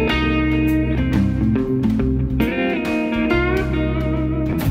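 Instrumental background music led by guitar, with some notes sliding in pitch about halfway through.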